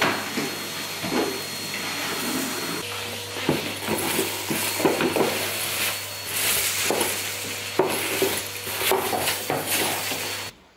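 Numatic Hetty canister vacuum cleaner running while sucking up renovation grit and dust from bare floorboards. Its steady hum is broken by frequent small clicks and rattles as debris is drawn into the hose.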